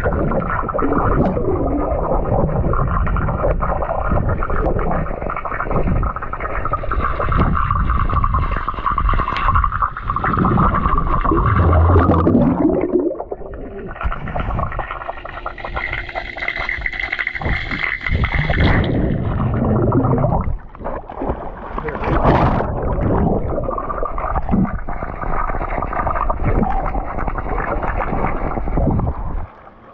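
Underwater sound in a swimming pool: a steady, muffled rumble and hum with gurgling, bubbling water.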